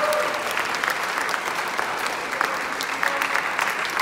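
Audience applauding with dense, steady clapping.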